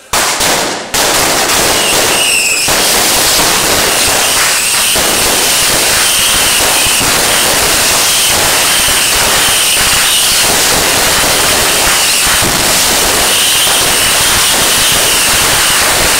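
Fireworks going off in a dense, continuous barrage of bangs and crackling, very loud, starting suddenly and running without a break. A wavering high whistle runs through much of it.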